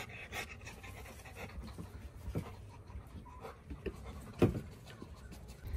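A dog panting softly, with faint rustling in straw and one sharper knock about four and a half seconds in.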